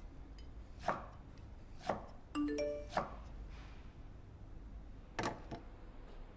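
A few sharp knocks, roughly a second apart, with a quick little electronic chime of stepping tones between the second and third knock.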